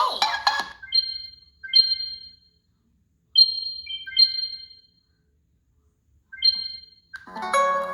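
Google Pixel 3a preloaded ringtone: a sparse tune of short ringing electronic notes, struck one or two at a time with pauses between, following the last moments of a busier percussive ringtone. Near the end the next ringtone starts with plucked-string notes.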